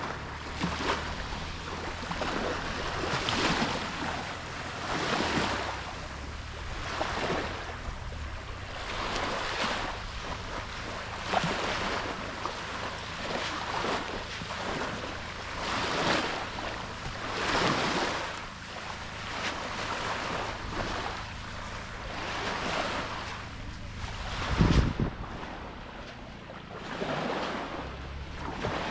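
Small waves washing onto a sandy beach, swelling and falling about once every two seconds, with wind on the microphone and a low thump near the end.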